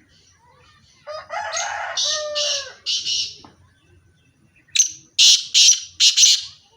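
Teetar partridges calling: a run of harsh calls with falling notes from about a second in, then a quick series of four or five short, loud, scratchy notes near the end.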